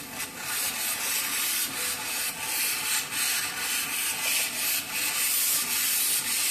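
Handheld steam cleaner blasting a jet of steam over a hookah bowl: a steady, strong hiss that wavers slightly in strength.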